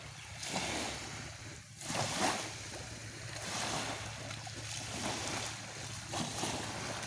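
Small waves lapping on a sandy shore, with water sloshing around a person's legs as she wades out of the shallows; the wash rises and falls in soft surges.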